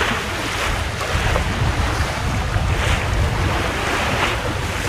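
Wind buffeting the microphone and the sea rushing along the hull of a small trailer sailer under sail in choppy water, the wash swelling every second or two.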